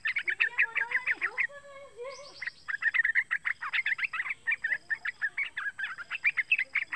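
Young yellow-vented bulbul singing a fast run of bubbly, chattering notes. About a second and a half in, the chatter breaks off for roughly a second while a lower, drawn-out call sounds, then resumes.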